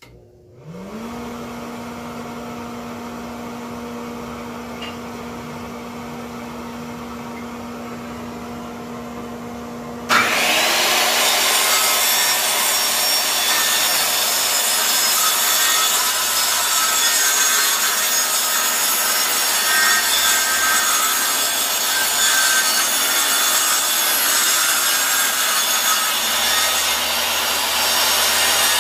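A whole-shop vacuum system's motor spins up and runs with a steady hum. About ten seconds in, a Craftsman circular saw starts with a rising whine and cuts through plywood, much louder, over the vacuum. This is a test of a retrofitted dust-collection port on the saw.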